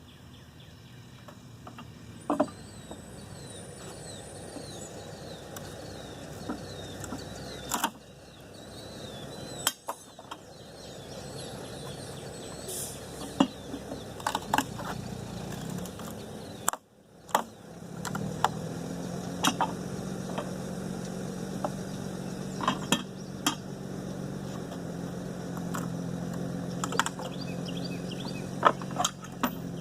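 Vestil heavy-duty pallet buster prying the boards of a heavily nailed pallet off: scattered sharp knocks and clanks of the steel tool against the wood and nails. A steady low hum joins in about halfway through.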